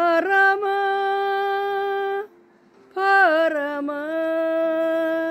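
A woman singing, holding two long sustained notes with a short pause between them; each note starts with a slide up in pitch before settling.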